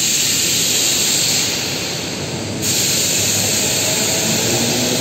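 Loud steady hissing and rushing machine noise of the overhead bulk-bag loading crane at work in the factory hall. The high hiss drops away for about a second midway and cuts back in abruptly, and a faint motor whine comes in near the end.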